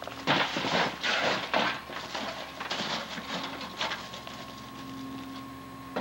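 Footsteps crunching and scraping through dry brush and loose boards and rusted sheet-metal debris, with rummaging among the junk. It comes in irregular bursts, with quieter gaps between.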